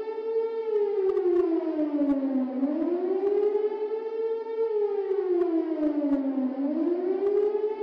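Air-raid siren wailing, its pitch sliding slowly down and then back up about every four seconds: the rising-and-falling alert that warns of an incoming air attack.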